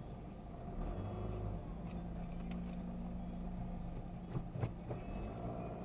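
Vehicle engine running with a low, steady hum, heard from inside the cabin as the vehicle rolls slowly over grass. Three short knocks come in quick succession a little past halfway.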